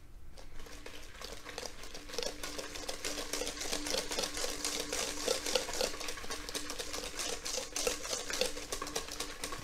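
Wire whisk beaten briskly by hand through thick frangipane batter (creamed butter, sugar, ground almonds and a raw egg) in a stainless-steel bowl, the wires tapping and scraping the metal in a fast, even rhythm. It starts about half a second in.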